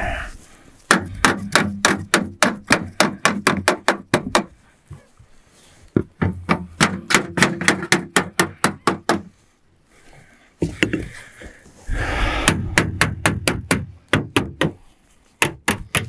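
Hammer blows on a striking block held against a sheet-metal roof seam, in quick runs of about five or six blows a second with short pauses between: the folded corner 'envelopes' of a standing-seam chimney flashing being knocked flat.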